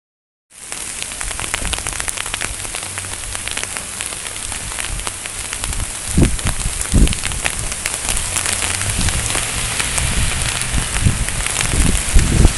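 Wind-driven sleet and rain pattering, a dense hiss full of small ticks. Wind buffets the phone's microphone with low rumbling gusts from about six seconds in, growing stronger near the end.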